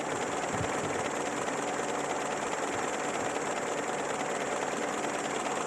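Peugeot 205's TU petrol four-cylinder engine running steadily.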